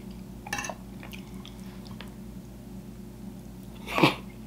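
Close-miked chewing of soft food, with a few small mouth clicks about half a second in and a louder clink of a spoon on the plate about four seconds in.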